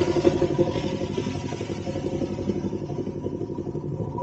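Motorcycle engine idling, a steady rapid pulsing.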